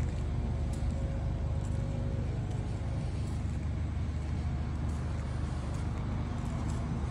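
Steady low rumble of motor vehicle noise, even in level throughout.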